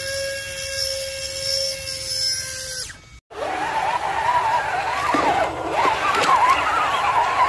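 Small electric motors of 1/10-scale RC crawlers whining. A steady whine lasts about three seconds, then after a brief break a whine wavers up and down in pitch as the truck is driven through mud.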